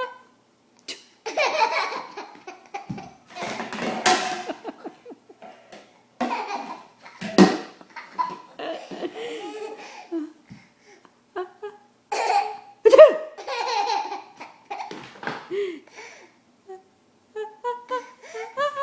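A woman's repeated fake sneezes, short noisy bursts a few seconds apart, and a young child laughing in hearty bouts between and after them.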